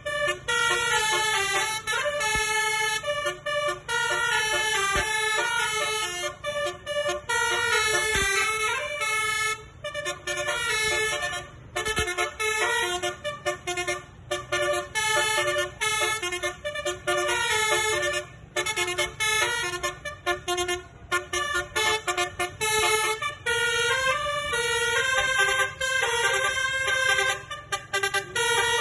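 Basuri telolet bus horn, a multi-tone musical horn, playing a fast tune of stepped horn notes, with a few short breaks between phrases.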